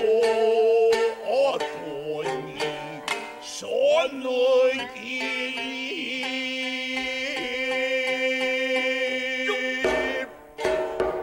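Gidayū jōruri chanting with futozao shamisen accompaniment: the chanters sing a line that bends and wavers, then hold one long drawn-out note for several seconds while the shamisen plucks along. A little before the end the voices stop and the shamisen plays several sharp strokes alone.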